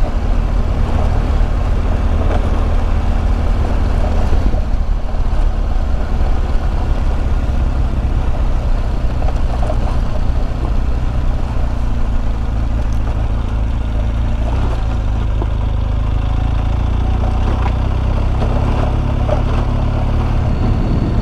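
Adventure motorcycle riding along a dirt road: a steady, unbroken engine drone with rumble from the tyres and the rush of air.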